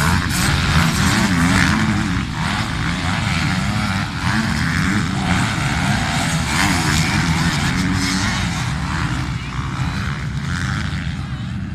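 Several motocross motorcycle engines running and revving together, their pitch rising and falling continuously as the bikes race.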